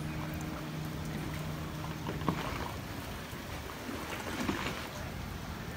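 Speedboat running on open sea, heard as a constant rushing wash of water. A steady low engine hum sounds at first and cuts off with a click a little over two seconds in.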